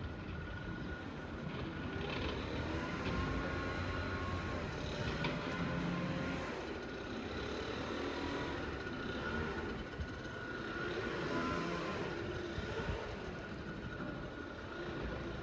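Garbage truck working at a distance: its diesel engine and hydraulics running steadily with a thin high whine over the low engine rumble.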